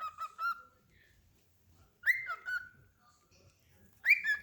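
Cockatiel whistling in short phrases: a quick run of notes at the start, a whistle that jumps up and then glides down about two seconds in, and another phrase beginning near the end.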